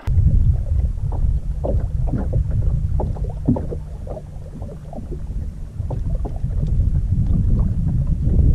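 Wind buffeting the camera microphone in a heavy low rumble that swells near the end, with small knocks and splashes of water against the bass boat's hull.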